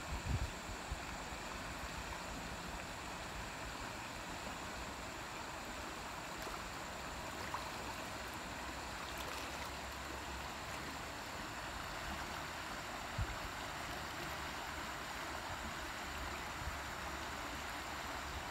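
Steady rush of a shallow, stony creek flowing over rocks, with a few light knocks.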